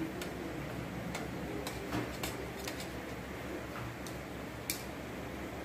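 A few light clicks at irregular intervals, about eight in all, over steady background room noise.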